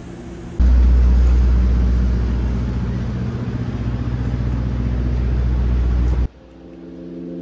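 City street traffic noise with a heavy low rumble, starting abruptly about half a second in and cutting off suddenly near the end.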